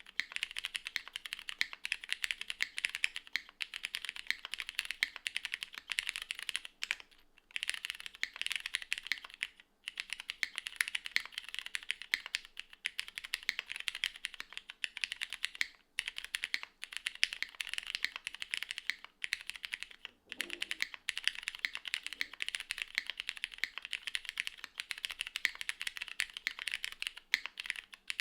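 Continuous fast typing on a plateless, gasket-mounted custom mechanical keyboard with Cherry HG Black linear switches and GMK doubleshot keycaps: a dense run of key clacks, broken by a few short pauses.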